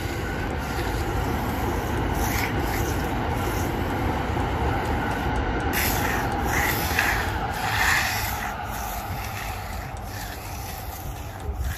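Steel finishing trowel swishing and scraping across wet concrete in a few sweeping strokes, over a steady low rumble.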